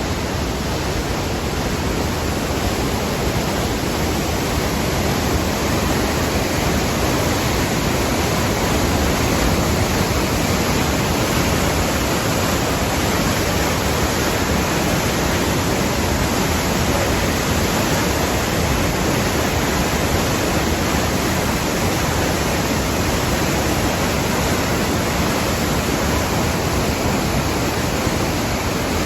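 Rhine Falls: the steady rush of a large volume of falling water, a dense, even noise with no breaks or changes.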